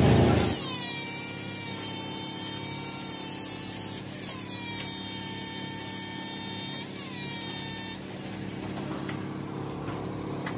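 Angle grinder with a small abrasive wheel whining at high speed, pressed against a steel workpiece turning in a lathe. Its pitch sags as the wheel bites, about half a second in and again just after four seconds. It stops about eight seconds in, leaving the lathe's lower steady hum.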